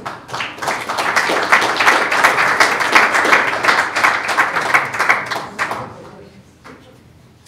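An audience applauding, building quickly just after the start and dying away about six seconds in.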